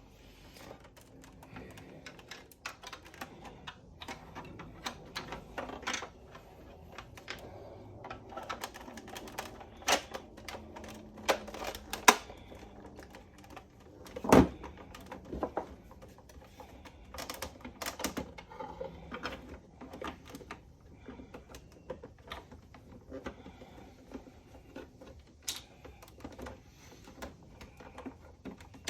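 Irregular small clicks and knocks of hands and a screwdriver working on the plastic case of a Sax-A-Boom toy saxophone while it is being screwed back together. The loudest knock comes about 14 seconds in.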